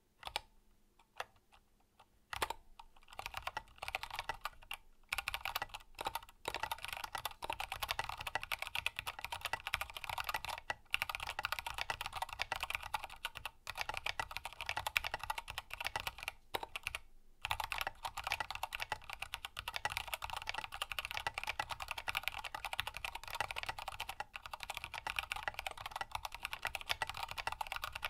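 Mechanical keyboard typing on a Grid 600 with lubed Kailh Box Black linear switches, a carbon fiber plate and Signature Plastics SA-profile keycaps, heard close up. A few single keystrokes come first, then fast continuous typing broken by short pauses.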